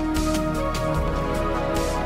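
Background music with a drum beat over held chords.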